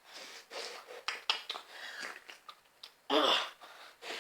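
Exaggerated wet mouth noises as a person smooches and slurps at a drink: a run of lip smacks, kissing clicks and breathy sucking, with one louder vocal sound falling in pitch about three seconds in.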